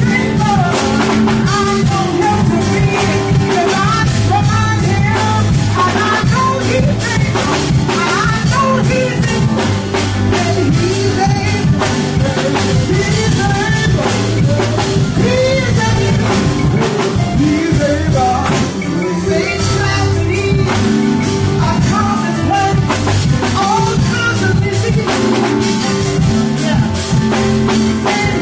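Band playing live: drum kit and electric keyboards, with a voice singing over them.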